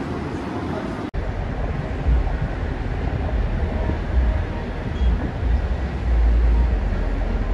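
Wind buffeting the microphone in irregular low rumbling gusts over a steady open-air hiss, starting after a brief dropout about a second in.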